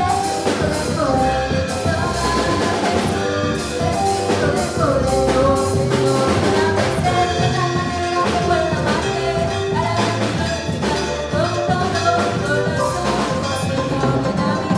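Latin church music played in a songo/salsa groove: drum kit and percussion with melodic instruments and some singing.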